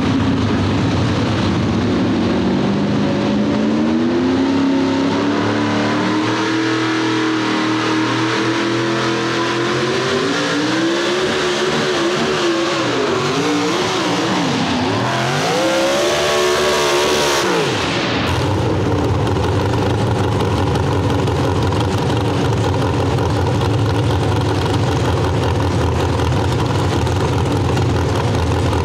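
Modified 4x4 pulling truck's big-block engine at full throttle hauling a weight-transfer sled. The revs climb, then surge up and down, and the engine cuts off suddenly about 18 seconds in. After that a lower, steady engine idle.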